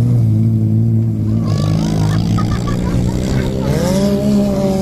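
Banger racing cars' engines running hard as the cars race round the track, with one engine revving up in pitch about three and a half seconds in.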